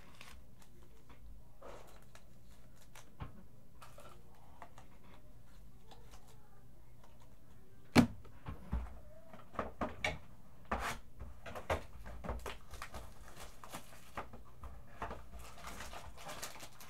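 Quiet room hum, broken about halfway through by one sharp click and then a run of small clicks and rustles, with more near the end as a cardboard trading-card box is handled and opened.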